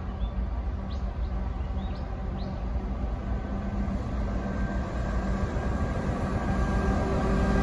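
Three diesel locomotives leading a train of empty coal hoppers approach: a steady low engine hum that grows slowly louder as they near.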